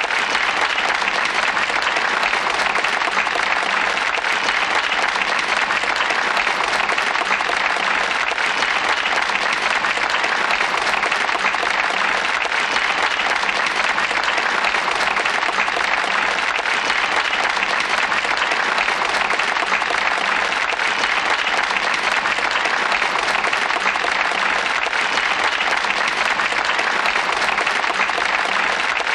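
A crowd applauding, steady dense clapping that keeps up without a break.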